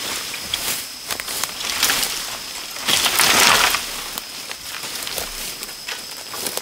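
Dry leaves and undergrowth rustling and crackling as someone moves through them, with one louder, longer rustle about three seconds in. A steady high-pitched insect whine runs underneath.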